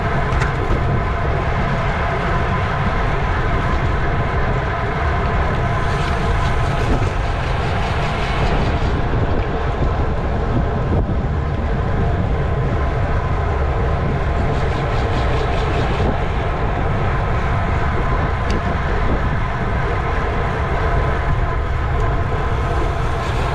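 Wind noise buffeting a racing bicycle's camera microphone at speed, over a steady hum from the moving bike. Fast ticking comes in twice, about six seconds in and again around fifteen seconds.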